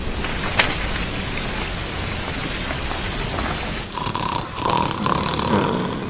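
Fountain water splashing steadily. From about four seconds in, a man snores with whistling notes over the splashing.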